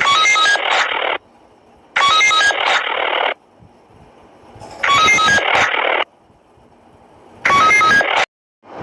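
A walkie-talkie-style ring tone played by a fake police radio app: four bursts about a second long, each a short run of quick beeps at shifting pitches over a hiss of radio static, repeating every two to three seconds.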